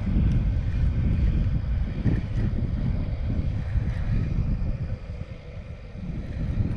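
Wind buffeting an outdoor microphone: a low, uneven rumble that eases off about five seconds in.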